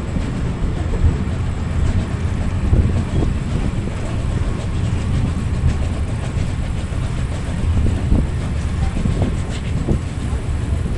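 Steam-hauled heritage train running along the track, heard from a carriage: a steady low rumble of wheels on rails with wind noise, and a few irregular short knocks.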